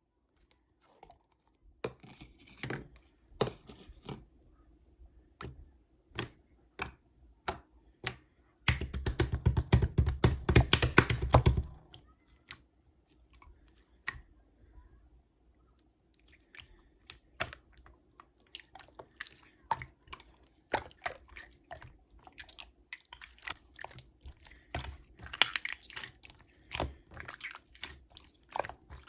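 Yellow jelly-type slime being squished, pressed and poked by hand, giving many small sticky clicks and pops. From about nine to twelve seconds in, a dense, louder run of rapid crackling as the slime is worked quickly.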